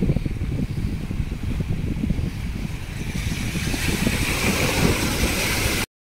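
Wind buffeting the microphone with a low, rough rumble. From about halfway a hissing rush of surf on the rocks swells up, and all sound cuts off suddenly near the end.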